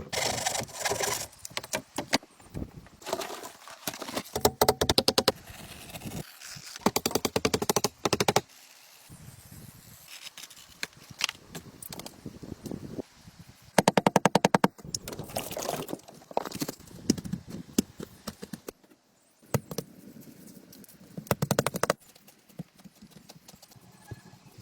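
A power tool with a rapid hammering action, running in bursts of dense, evenly spaced clicks about a second long, repeated several times with short pauses between them.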